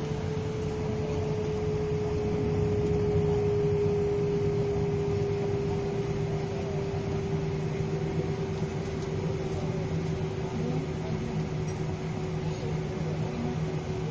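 Jet airliner engines running steadily, heard from inside the passenger cabin: an even drone with a held whining tone that sinks very slightly in pitch.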